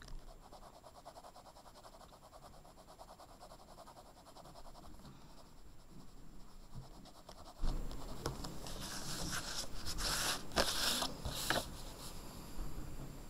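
Blue coloured pencil shading on paper: a light, rapid scratching of quick back-and-forth strokes. About seven and a half seconds in it gives way to louder rustling and a few sharp bumps as the sheet of paper is handled and turned.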